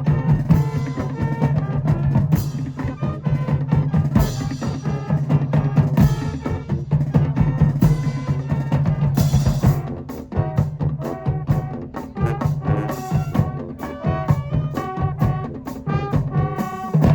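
High school marching band playing: brass over a drumline, with a sustained low bass line, steady drum strokes and cymbal crashes about four and nine seconds in.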